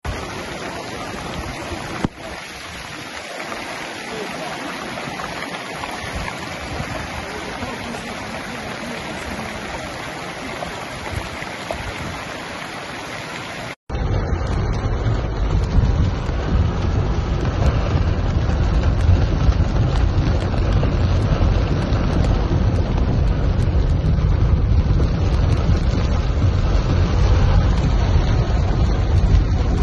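Muddy floodwater rushing down a street in heavy rain, a steady hiss of water. About halfway through, a cut to the sound inside a car in the storm: heavy rain beating on the car and windscreen, louder and with a deep rumble.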